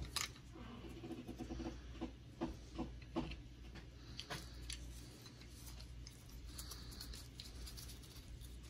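Plastic phone tripod mount being handled in nitrile-gloved hands: a few sharp clicks and short squeaks as its clamp and knob are turned, mostly in the first four seconds, then fainter rubbing.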